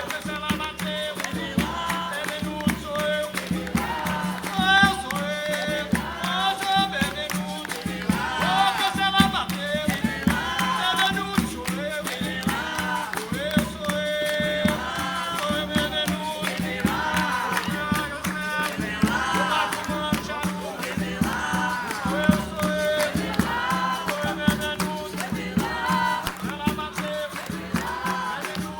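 Capoeira roda music: group singing over berimbau with its caxixi rattle and hand percussion, in a steady rhythm.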